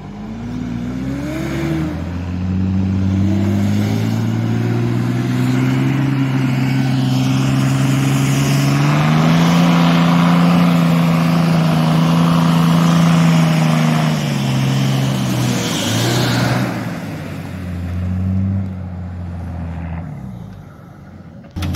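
A 4x4's engine revving hard and held at high revs under load while it strains to pull a vehicle stuck in mud on a tow strap, its wheels spinning and throwing mud. The revs climb over the first couple of seconds, hold for about twelve seconds, drop back, rise once more briefly, then settle lower near the end.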